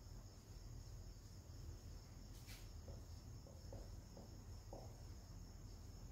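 Near silence: faint, steady high chirring of crickets over a low hum, with a few soft ticks around the middle.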